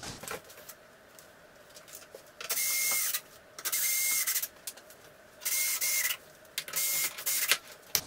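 Makita 18 V cordless drill-driver whirring in four short bursts of about half a second each, driving the screws that fix the front panel to the dishwasher door.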